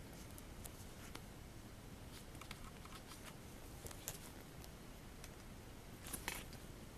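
Light clicks and rubbing from a small vinyl toy figure being handled and turned in the fingers, scattered through, with a short cluster of louder clicks near the end, over a low steady hiss.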